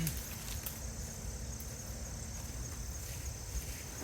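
Insects chirping steadily in a high, evenly pulsed trill, over a low rumble of wind on the microphone, with a couple of faint clicks.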